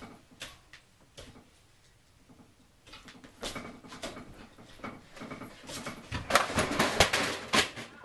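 A run of irregular sharp taps and knocks, sparse at first, then growing denser and louder from about three seconds in.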